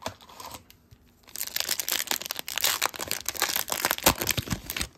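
Foil hockey-card pack wrapper crinkling and tearing as it is ripped open by hand. A dense crackle starts about a second in and stops just before the end.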